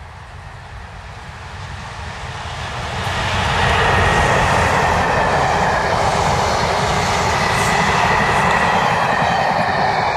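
Train hauled by a class 37 diesel locomotive with its English Electric engine, pulling HST coaches past at speed. The sound builds over the first four seconds as the train approaches, then holds as a loud, steady rush of the coaches rolling by, with a faint steady whine above it.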